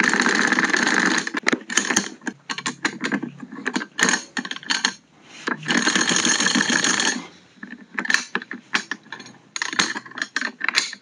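Metal folding bipod of an airsoft FN MK46 replica being worked by hand, its legs swung and extended with ratcheting and clicking. There is a long rattling ratchet at the start and another about six seconds in, with scattered sharp clicks between and after.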